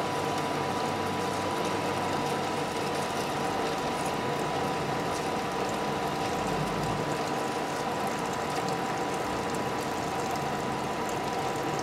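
Metal lathe running steadily while a parting tool, fed by hand with coolant, cuts a short bush off the bar stock, a steady tone sounding over the machine noise.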